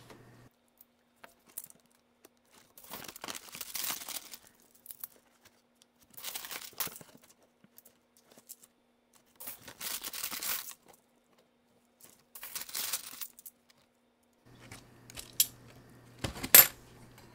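A plastic bank coin bag rustling in four separate bursts as hands dig through half-dollar coins inside it. Coins clink, with a sharp click near the end.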